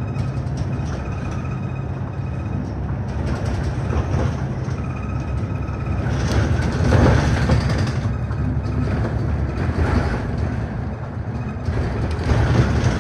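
City bus running along a street, heard from inside the cabin at the front: a steady engine and road rumble that swells louder for a couple of seconds midway. A faint short tone repeats about once a second in parts.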